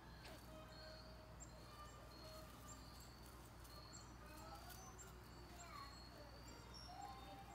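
Near silence: faint outdoor ambience with scattered short, high chirps from distant birds over a low steady hum.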